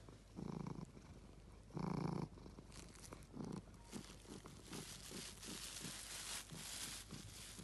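Oriental cat purring in slow, breath-long pulses, the loudest about two seconds in, then a clear plastic bag crinkling and crackling under the cat as it presses its head and paws into it, busiest near the end.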